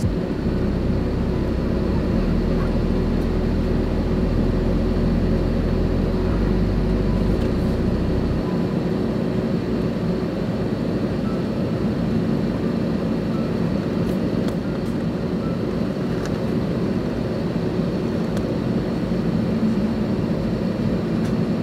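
Steady cabin noise inside an Airbus A320neo taxiing slowly toward its stand. A deep rumble eases off about eight seconds in.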